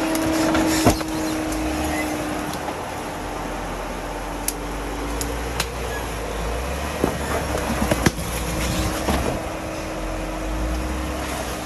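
Off-road vehicle running steadily at low speed, a constant low drone with rumble. A few sharp knocks and clicks come through, the loudest about a second in and a cluster around eight seconds.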